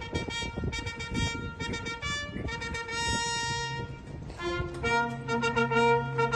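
Military trumpet call in the open air: short and held brass notes, with one long high note about three seconds in followed by a run of quicker notes. From about five seconds a low held note joins underneath, and a scatter of dull low knocks runs beneath the first half.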